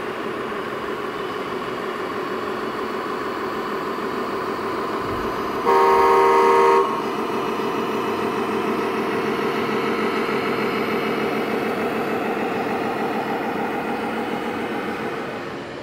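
Sound module of a radio-controlled Scania model truck playing a steady diesel engine sound, with one loud air-horn blast lasting about a second, almost six seconds in.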